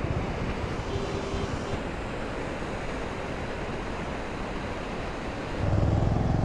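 Water rushing out below Maneri Dam at high force: a steady rushing noise, with wind on the microphone. Near the end a low, steady engine hum comes up.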